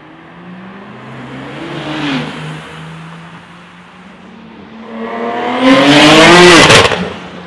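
Heavily modified BMW 335i Touring with a big single turbo on its straight-six, accelerating hard past. A shorter rev rises and falls about two seconds in. Then the engine note climbs to a very loud peak and cuts off abruptly near the end.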